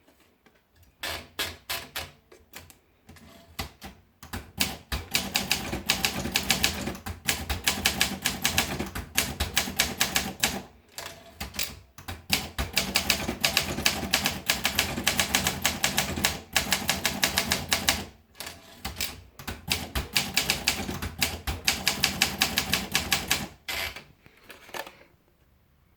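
Olympia Monica manual portable typewriter being typed on: runs of rapid key strikes, broken by two short pauses, stopping shortly before the end.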